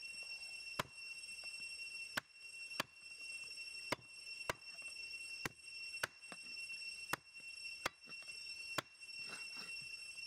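Large cleaver chopping crocodile meat and scaly skin on a chopping block: about a dozen sharp chops, roughly one a second, with two close together near the end. A steady high-pitched drone runs underneath.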